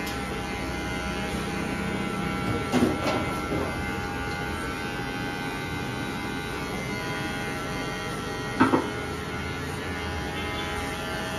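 Electric hair clippers running with a steady buzzing hum as they trim hair at the back of a head. A few brief louder sounds come about three seconds in and again near nine seconds in.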